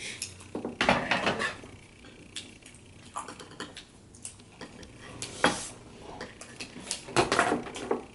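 Chopsticks and utensils clinking and tapping against a metal bowl and plates in scattered clicks, with a short clatter about a second in, a single sharp knock past the middle, and another clatter near the end.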